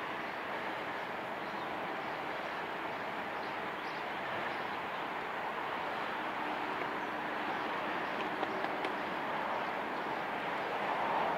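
Steady rushing wind and road noise of a bicycle ride picked up by an action camera's microphone, with two faint clicks about three-quarters of the way through.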